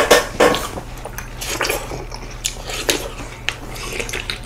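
Wet, crisp bites and chewing of juicy watermelon slices, several irregular short sounds with the loudest right at the start and about half a second in.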